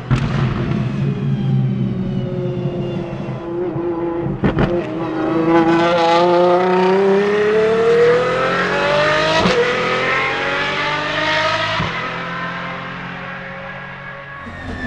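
Apollo Intensa Emozione's 6.3-litre naturally aspirated V12 accelerating, its pitch climbing steadily. Sharp cracks come about four and a half and nine and a half seconds in, and the engine note fades near the end.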